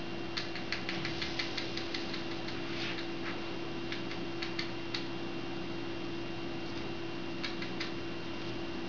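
Small sharp clicks and taps from chinchillas in a wire-mesh cage: a quick run of them for about three seconds, then a few scattered ones, over a steady electrical hum.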